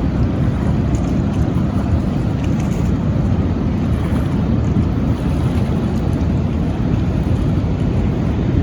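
Steady rushing roar of a river waterfall: loud, even and unbroken, heaviest in the low range.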